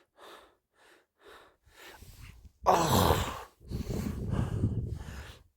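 A person breathing hard: short quick breaths, then a loud strained gasp about three seconds in and a longer rough exhale.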